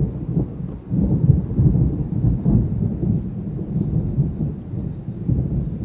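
Thunder rumbling: a long low roll that swells about a second in and then slowly eases off.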